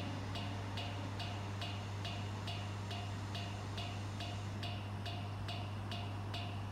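An electronic warning beeper sounding evenly about two and a half times a second, over the steady low electrical hum of an electric train standing at the platform.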